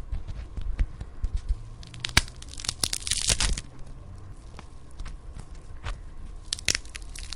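Bone-break sound effects: a sharp crack about two seconds in, then a second of dense crunching, with scattered small cracks and another crunchy crackle near the end.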